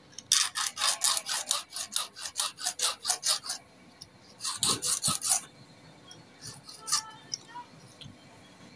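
Small flat hand file rasping back and forth across the worn-flat teeth of an overlock machine's metal feed dog, sharpening them: quick, even strokes about five a second for about three seconds, then a second shorter run of strokes, then a few faint ticks near the end.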